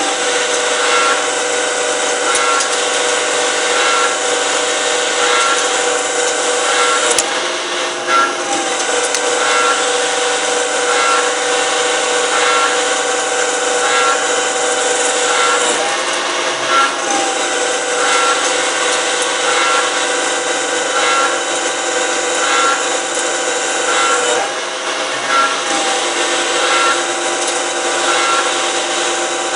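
CNC lathe machining: a steady mechanical whine with cutting and rubbing noise and a light beat about once a second. The pitch of the whine shifts a few times, around 8, 16 and 24 seconds in.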